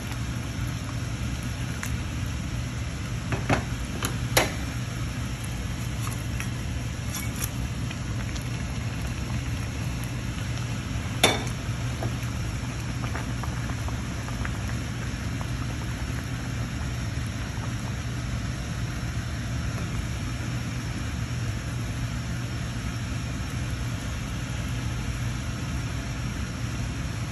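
Curry of bottle gourd, ridge gourd and potato boiling in a pan as whole koi fish (climbing perch) are added and stirred in: a steady bubbling with a low hum underneath. A spatula knocks sharply against the pan twice about 3 to 4 seconds in and once more about 11 seconds in.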